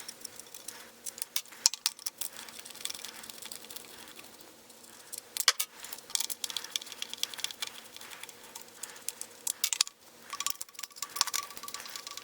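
A screwdriver backing screws out of a plastic pump housing: scattered light clicks and small rattles, with a few sharper clicks about halfway through and again near the end.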